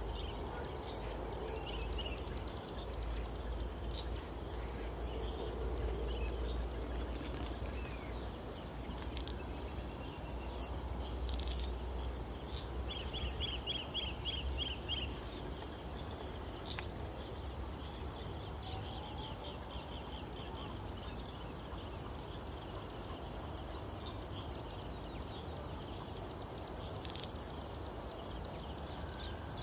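Insects trilling in repeated bursts of a second or so, over a steady low rumble of outdoor ambience, with a short run of quick chirps about halfway through and a few faint bird calls.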